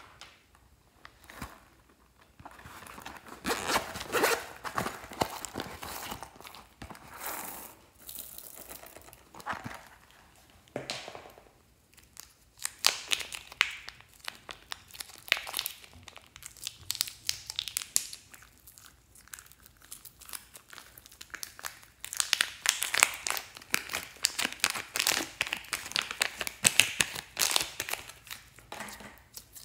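Clear plastic bag of jelly slime crinkling and tearing as it is handled and pulled open by hand, in three bursts of dense crackling with quieter pauses between.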